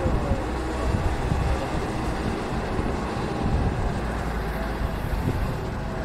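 Wind rumbling on the microphone over the steady running of a distant diesel engine from a Trường Giang 8-tonne four-wheel-drive dump truck.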